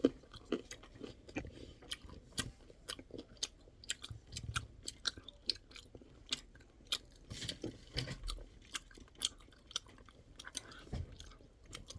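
Chewing almond chocolates close to the microphone, with many short, sharp crunches.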